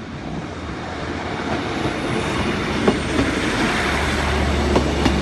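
East Midlands Railway diesel multiple unit passing over a level crossing: a growing rumble of wheels on rail, with a few sharp clicks as the wheels run over rail joints. A low engine hum builds toward the end.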